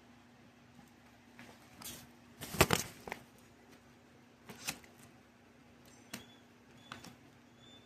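Hands handling a vinyl record and its packaging: scattered rustles and taps, the loudest a short rustling burst about two and a half seconds in.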